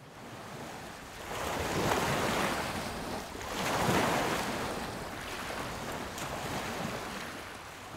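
Sea waves surging and washing in, with wind, swelling twice: a storm-at-sea sound effect.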